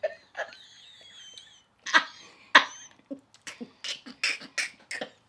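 Mouth noises of someone biting into and chewing a cold, stiff pig's foot. A thin wavering squeak comes early, then two sharp cracks, then steady chewing at about three strokes a second.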